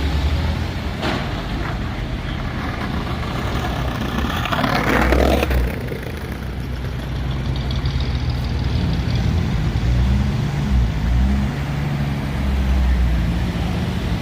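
Engines of vehicles driving slowly out of a car show, with a steady low rumble. About five seconds in there is a loud rushing burst, and later an engine's pitch rises and falls as it is throttled.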